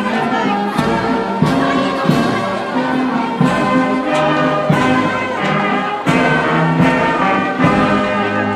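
Brass band playing a tune with a steady beat of about one and a half beats a second.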